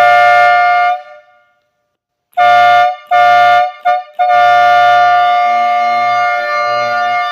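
Electric air horn powered straight from a car battery, blasting loudly on one steady pitch with a buzz underneath. It sounds for about a second, then gives two short blasts and a very brief one, then a long blast of about three seconds that cuts off suddenly near the end.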